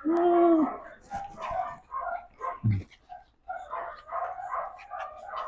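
A group of puppies yipping and whimpering in many short, high cries as they play and scramble together.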